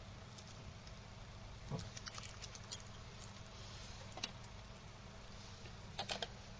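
Small sharp clicks and taps from handling: a scattered run about two seconds in, a single one a little after four seconds, and a quick cluster of three or four near the end, over a steady low electrical hum.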